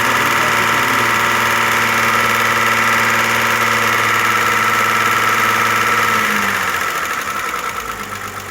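Audi A6 engine running with a rhythmic valve-train tick from its hydraulic lifters, which are gradually quietening, though one still taps a little. About six seconds in, the pitch slides down and the sound gets quieter.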